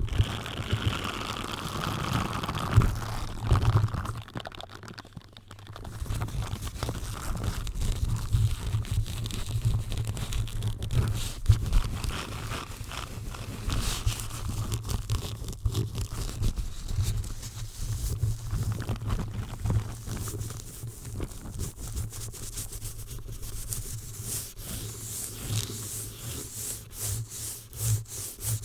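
A microphone being rubbed and scrubbed directly, close up: continuous scratching and crackling with frequent low thumps of handling noise.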